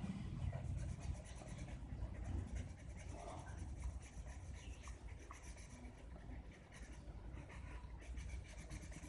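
Faint scratchy strokes of a Faber-Castell Connector felt-tip pen colouring in on paper, over a low steady rumble.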